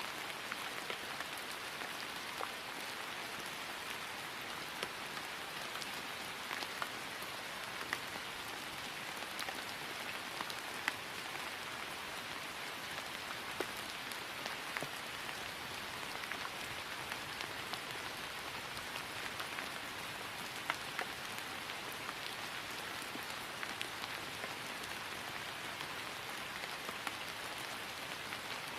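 Steady rain falling on grass, an even hiss with scattered drop ticks.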